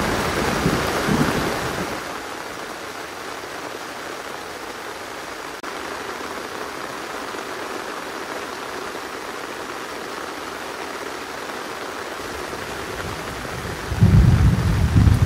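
Steady rain falling, an even hiss. A low rumble swells over it for the first two seconds and comes back strongly near the end.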